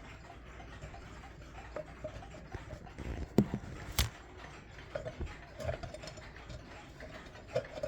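Scattered clicks and knocks of a Waterbury clock being handled while its hands are turned, the sharpest two about three and four seconds in. No gong rings out.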